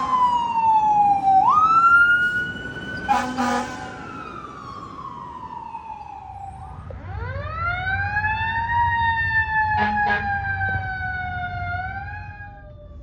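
Fire truck siren wailing, its pitch falling, jumping back up and winding up and down again. A short air horn blast cuts in about three seconds in, and a brief horn blip comes around ten seconds.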